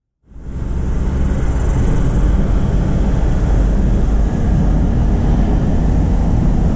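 Car driving along a sealed road, heard from inside the cabin: a steady, loud rumble of tyre, engine and wind noise that fades in from silence just after the start.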